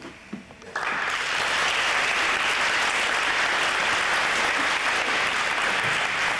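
A seated group of people applauding, the clapping starting suddenly about a second in and then keeping up steadily.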